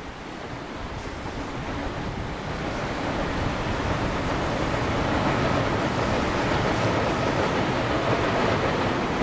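Steady rush of river rapids mixed with the rumble of a JR Shikoku 2000 series diesel railcar crossing a steel truss bridge. The sound grows louder over the first five seconds, then holds level.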